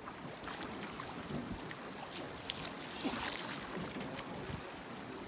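Water splashing and lapping around a small wooden rowboat as its oars dip and pull, with irregular small splashes over a steady wash, and some wind rumble on the microphone.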